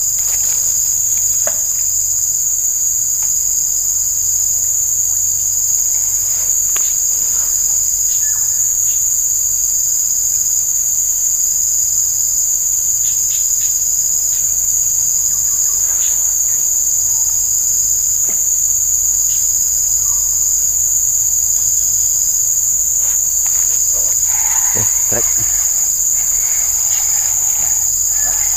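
Dense chorus of forest insects, a steady, unbroken high-pitched buzzing, with a few faint clicks scattered through it.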